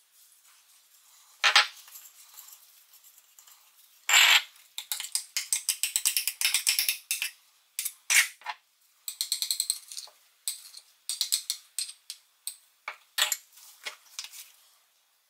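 Kitchen handling sounds as sauce ingredients go into a glass bowl: a couple of sharp knocks, then runs of rapid ratchet-like clicking and spoon clinks against the glass.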